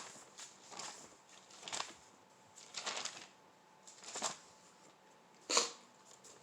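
Bible pages being leafed through and turned, a short papery rustle about every second, about six in all, the sharpest one near the end.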